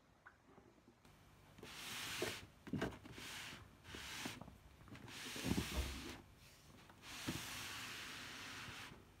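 Handling noise: a hand rubbing and rustling against the sneakers and phone in about five short stretches, with a few soft knocks, the longest rub near the end.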